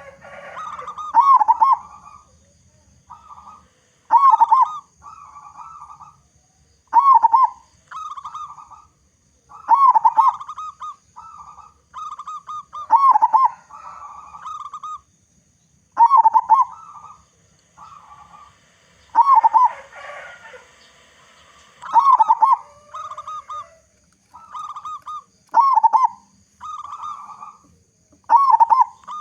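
Zebra dove (local perkutut) singing, repeating its cooing phrase about every three seconds. Each phrase opens with a louder coo and trails off into softer, quicker coos.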